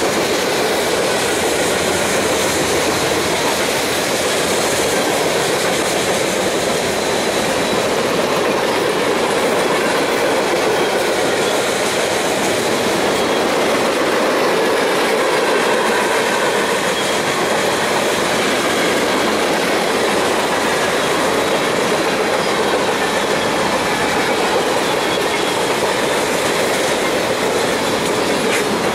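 Freight train of covered hoppers and boxcars rolling past, a steady, unbroken noise of steel wheels on rail with a faint high squeal from the wheels.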